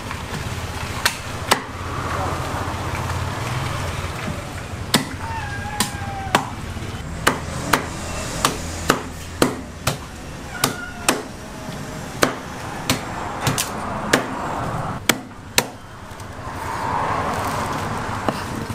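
Meat cleaver chopping smoked beef on a thick round wooden chopping block: about twenty sharp strikes at an uneven pace, two near the start, then a run from about five to sixteen seconds in.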